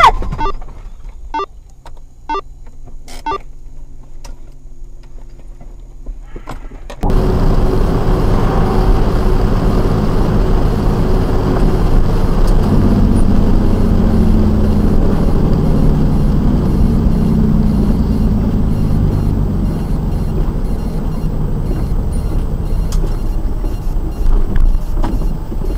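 Steady low rumble of engine and tyre noise from inside a vehicle driving on a wet highway, with the engine note shifting in pitch midway. Before it, several seconds of quieter city driving with a few clicks.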